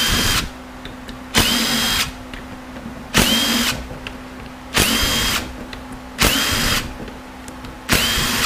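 Cordless power drill run in six short bursts of about half a second each, roughly one every second and a half. Each burst starts with a quick rising whine as the motor spins up, then holds steady.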